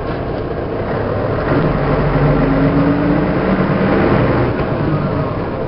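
1988 MAN SL 202 city bus's horizontal six-cylinder diesel engine running under way, heard from on board. From about a second and a half in it pulls harder and its note rises, then eases back near the end.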